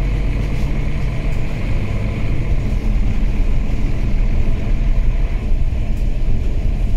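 Cabin noise of a Mercedes-Benz O530G Citaro articulated city bus under way: its 12-litre OM457hLA six-cylinder diesel and Voith automatic gearbox running with a steady low rumble and road noise, a little louder about halfway through.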